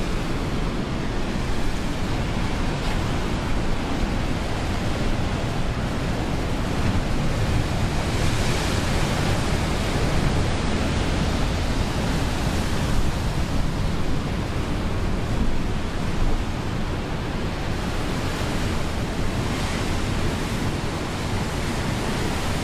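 Atlantic surf breaking over rocks: a loud, continuous rush of churning water that swells several times as waves break and wash back.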